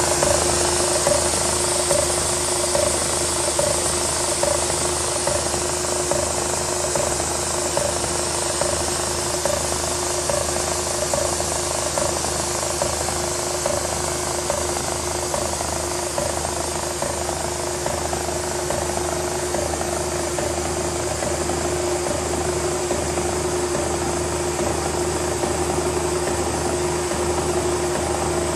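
Horizontal milling machine running as its arbor-mounted cutter mills a metal block: a steady mechanical hum with one held tone. A rhythmic pulse comes about twice a second through the first ten seconds or so.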